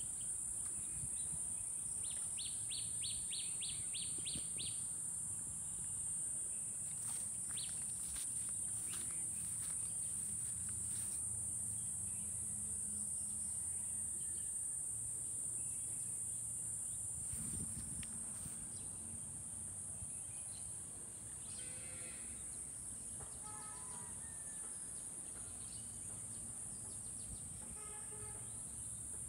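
Steady high-pitched drone of insects, with a bird calling a quick run of about eight short notes a few seconds in.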